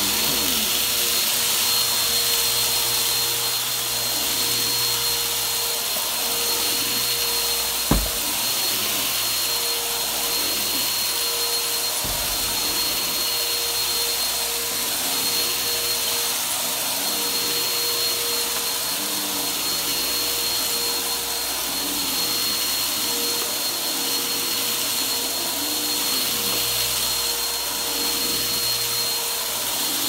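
Bissell PowerForce Helix upright vacuum cleaner running steadily as it is pushed over carpet, with a thin high whine over the motor's rush. A single sharp knock comes about eight seconds in.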